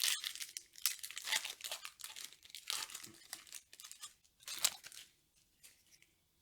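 Yu-Gi-Oh blister-pack packaging being torn open by hand: a run of crackly plastic-and-foil crinkles and tears, loudest at the start and again near five seconds, then dying away.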